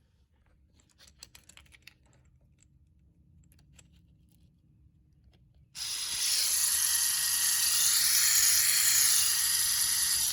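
A few faint clicks, then about six seconds in a 1st-gen Dodge Neon power door lock actuator's small electric motor whirs steadily for about four seconds and cuts off suddenly. The motor spins but the lock does not move: the gear inside is stripped.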